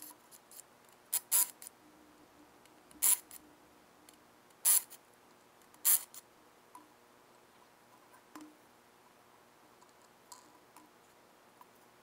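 Ryobi cordless impact wrench spinning the ATV wheel's lug nuts loose in four short bursts about a second and a half apart, then a few faint clicks as the nuts and wheel are handled.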